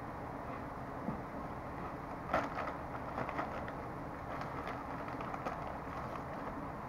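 Quiet crinkling of a snack chip bag as a hand rummages in it, mixed with the crunching of chewed crispy onion rings, in scattered small crackles over steady background noise; the sharpest crackle comes about two and a half seconds in.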